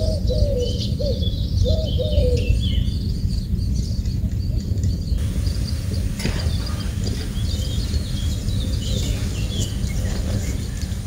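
Small birds chirping over and over above a steady low rumble, with a pigeon cooing in the first couple of seconds.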